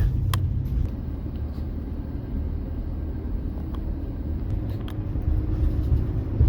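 Car driving, heard from inside the cabin: steady low engine and road rumble, with a few faint clicks and knocks.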